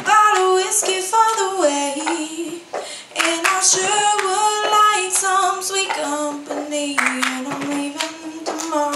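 A young girl singing solo into a microphone, holding long notes that slide from one pitch to the next, with scattered claps from the audience.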